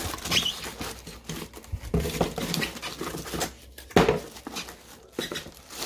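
Cardboard and plastic packaging rustling and crinkling as speakers are unpacked from their box, with irregular clicks and a sharp knock about four seconds in.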